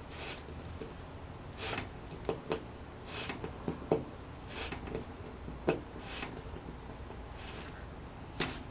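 Hand screwdriver driving a screw with a metal finishing washer into a painted panel: short scraping turns about every second and a half, with small sharp clicks and creaks between them as the screw bites in.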